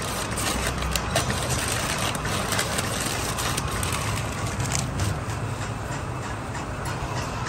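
Thin steel transformer lamination plates clicking and clinking as they are handled and pushed into the coil formers, many short sharp ticks at irregular intervals, over a steady low engine-like rumble.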